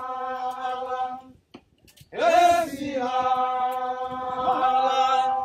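Men's voices chanting a traditional snake dance song in long held notes. The first note breaks off about a second and a half in; after a short pause a new note starts with a slide down and is held steady.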